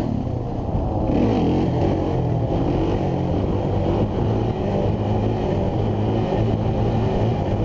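Suzuki LT-Z400 quad's single-cylinder four-stroke engine running under throttle as it is ridden, the revs rising and easing.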